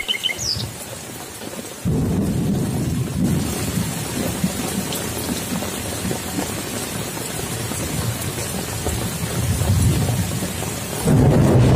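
Rain falling steadily. A low rolling rumble of thunder comes in suddenly about two seconds in and rumbles on. Near the end a louder rushing noise takes over.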